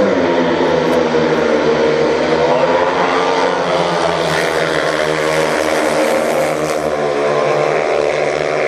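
Four speedway motorcycles' single-cylinder 500 cc methanol engines at full throttle as they leave the start and race into the first bend, several engine notes running together. The notes change pitch sharply as they launch and keep rising and falling.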